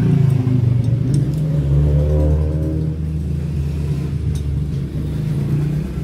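An engine running, a steady low drone whose pitch rises briefly about two seconds in, with a few light clicks over it.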